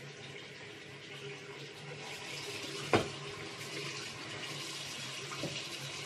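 Bathroom sink tap running steadily into the basin, with a single sharp knock about three seconds in.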